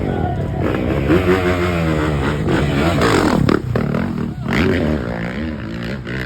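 Dirt bike engine revving in mud, its pitch rising and falling repeatedly.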